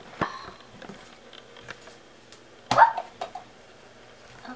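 Plastic surprise egg being pried apart by hand: light plastic clicks and handling, then a single sharp pop as the two halves snap open a bit over halfway through.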